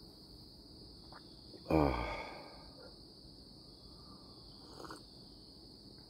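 Crickets chirring in a steady, high-pitched chorus. About two seconds in, a man makes a brief, falling vocal sound, like a sigh.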